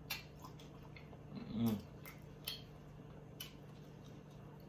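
Mouth sounds of a man eating: scattered chewing and lip-smacking clicks, with a short hummed vocal sound about a second and a half in.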